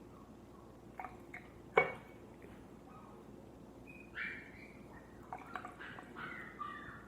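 Lemon being squeezed by hand, its juice dripping into a container, with a sharp clink about two seconds in. Short high-pitched squeaks, falling in pitch, follow in the second half.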